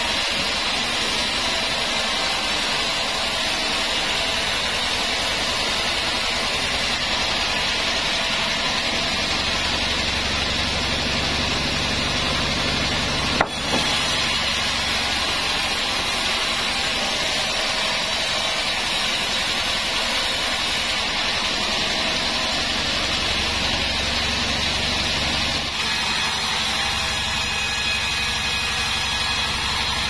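Band sawmill running and sawing a wadang log, a steady noise of blade and motor with no let-up. There is a single sharp knock about halfway through.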